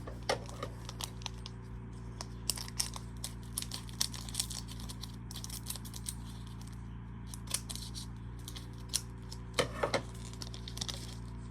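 Light, scattered clicks and taps of Pokémon trading cards and booster packs being handled on a table, with a quick cluster of clicks about ten seconds in, over a steady low hum.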